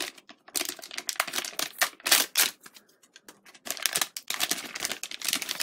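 Crinkling and crackling of a shiny anti-static plastic bag being opened and pulled off a hard drive, in irregular bursts with a short lull about three seconds in.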